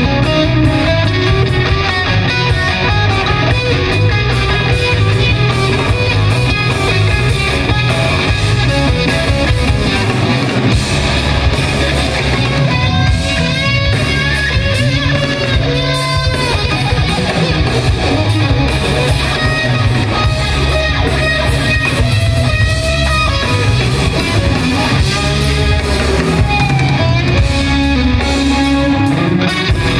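Live rock band playing loud, with electric guitar to the fore over drums.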